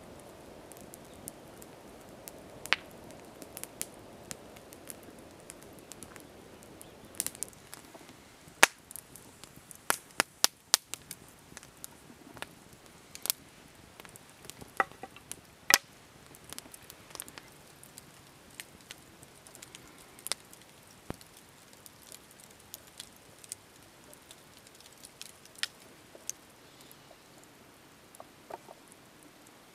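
Wood campfire crackling, with sharp pops at irregular intervals, a few of them loud, and a low rush of flame that fades about eight seconds in.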